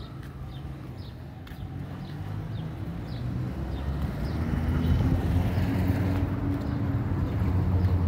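A small motorcycle engine running, its steady hum growing louder as it approaches.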